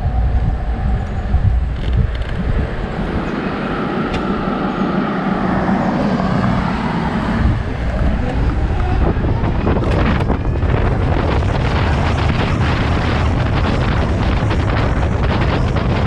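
Wind rushing over the microphone of a Zero FXE electric motorcycle as it picks up speed, over road rumble; an oncoming car passes with a falling pitch just before halfway, and from about ten seconds in the wind becomes a steady loud whoosh.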